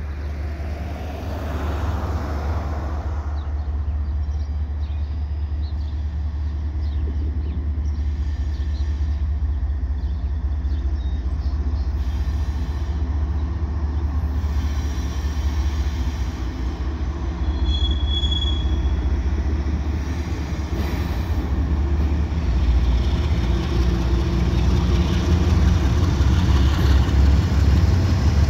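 Freight train's two GE ES44AC diesel locomotives approaching, their engines running with a steady low rumble that grows louder as they near.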